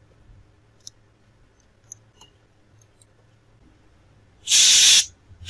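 A few faint, small clicks from a precision screwdriver driving the screws of a tablet's plastic frame, then, about four and a half seconds in, a short hiss of an aerosol cleaning spray sprayed into a tissue.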